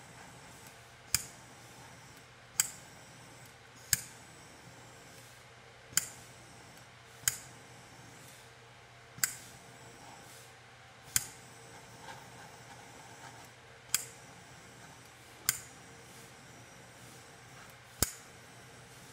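Handheld butane torch: about ten sharp clicks at uneven gaps of one to three seconds, typical of its piezo igniter trigger being clicked, over a faint steady hiss.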